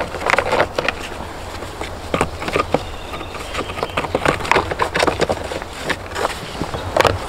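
Irregular clicks, knocks and crunches, several a second, from work on a dry stone wall in the woods, over a low steady rumble.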